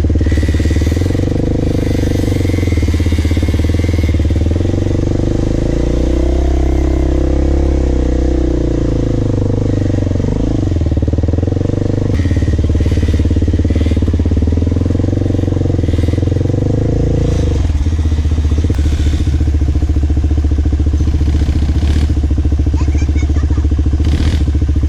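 Off-road bike engine running under way, its pitch dipping and rising with the throttle around the middle, then holding a steady note near the end.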